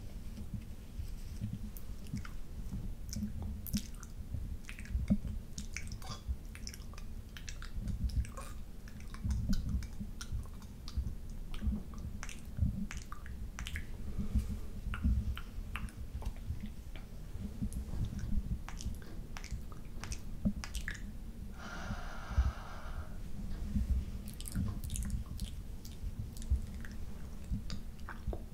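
Close-up wet mouth sounds: tongue licking and lips smacking right against the microphone. An irregular run of sharp wet clicks sits over a low rumble.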